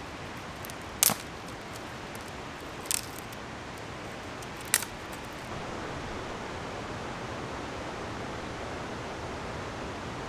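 Steady rushing of river rapids, with three sharp knocks about one, three and five seconds in.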